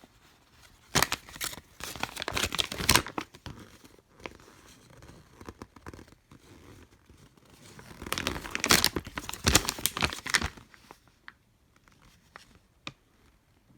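Paper rustling and crinkling in two bursts as an instruction leaflet is unfolded and handled, followed by a few light clicks.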